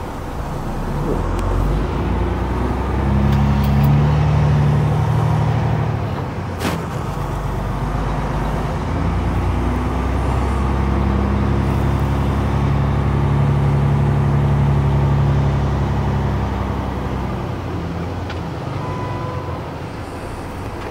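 Semi-truck's diesel engine heard from inside the cab, pulling away and accelerating through the gears: the engine note climbs, drops back at a shift with a sharp click about six and a half seconds in, climbs again, then eases off near the end.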